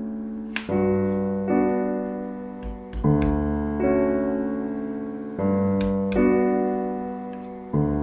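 Background piano music playing slow sustained chords that change every second or two. A few short, sharp knocks sound over it about half a second in and around three seconds in.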